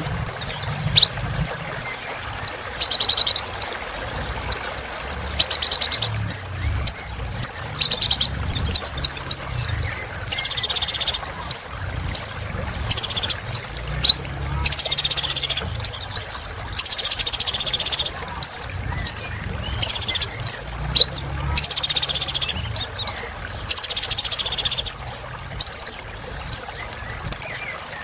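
A kolibri ninja sunbird singing a fast, continuous song of thin, very high chirps and quick sweeping notes, broken every second or two by short buzzy trills.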